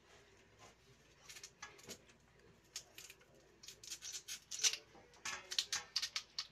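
Kitchen knife scraping and cutting in quick short strokes along a peeled raw taro corm. The strokes start faintly about a second in and come faster and louder in the second half.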